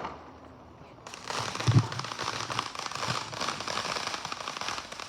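Consumer firework crackling: after a quiet first second, a dense, steady stream of sharp crackles sets in and keeps going, with a couple of low thumps under it.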